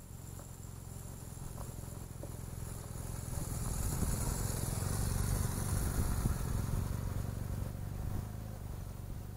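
BMW R1200 GS Adventure's boxer-twin engine running as the motorcycle rides past close by, growing louder to a peak about halfway through and then fading as it pulls away.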